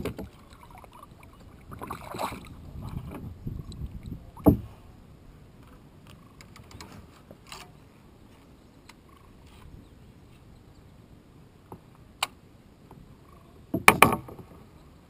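A bass being landed and handled in a plastic kayak: rustling and several knocks for the first few seconds, then quiet handling with light clicks. Near the end a sharp knock, then a loud clattering burst as the fish is held up close.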